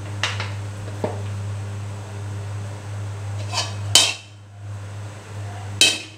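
Slotted metal spatula knocking and scraping against a wok as it spreads a little oil, with a few sharp clanks; the loudest comes about four seconds in. A steady low hum runs underneath.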